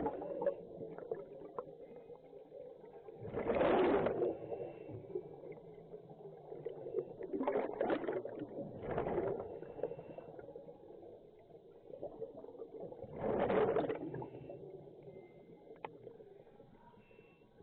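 Scuba diver's exhaled bubbles bursting from the regulator underwater, in gurgling rushes a few seconds apart with each breath out, quieter between breaths.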